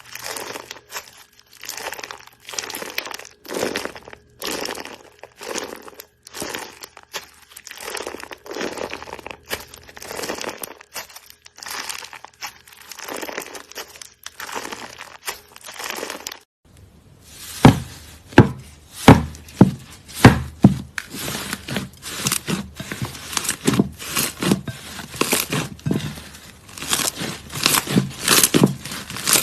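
Crunchy slime squeezed and pressed over and over, crackling and crinkling with each squish. About two-thirds of the way through it changes to a louder slime whose presses give sharp, snappy crackles and pops.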